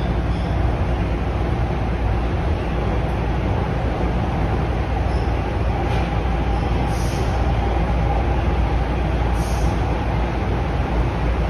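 Toronto Rocket subway train running at speed, heard from inside the car: a steady low rumble of wheels on the rails and running gear. A faint steady whine joins about halfway through.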